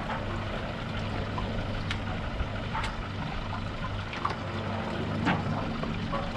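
Boat engine running steadily at low revs, with water splashing and lapping against the hull and a few brief splashes or knocks.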